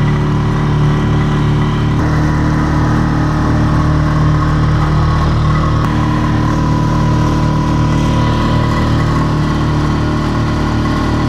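Small tiller-steered outboard motor running steadily at speed, pushing a jon boat across the water. Its pitch shifts slightly about two seconds in.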